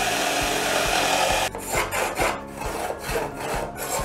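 Cordless jigsaw sawing through a pine drawer board, running steadily for about a second and a half, then cutting in uneven spurts.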